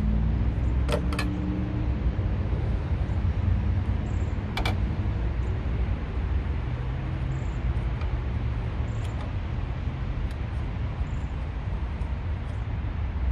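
Steady rumble of highway traffic passing close by, with a few sharp clicks: two about a second in and one more a little after four seconds.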